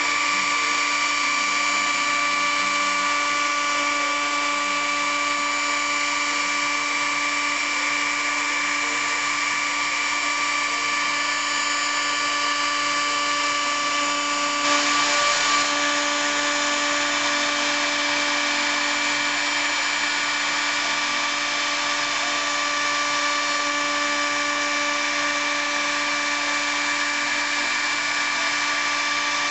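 CNC router spindle running at a steady whine, with the hiss of its bit milling wood.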